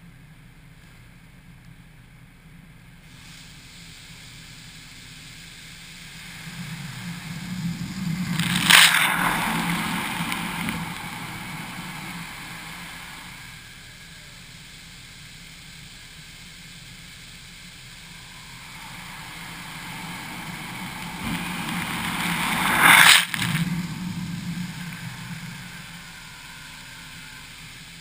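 High-pressure water jets of a touchless car wash passing over a roof-mounted GoPro twice: a spray hiss builds over a few seconds, peaks in a loud blast as the jets hit the camera, then fades back to a lower steady hiss.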